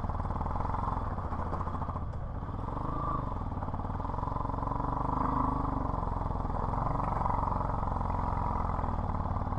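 Motorcycle engine running steadily at low speed while the bike rolls down a gravel road, the engine note swelling slightly about halfway through.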